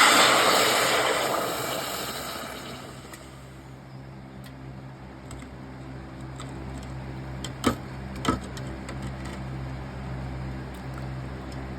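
Hiss of a freshly cast, still-hot copper piece being quenched in water, fading away over the first few seconds. Then a steady low hum, with two sharp clicks about half a second apart a little past the middle.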